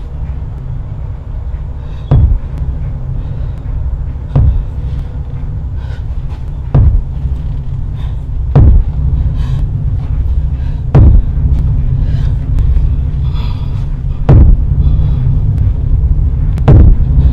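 Deep continuous rumble with seven heavy thuds, one every two to three seconds.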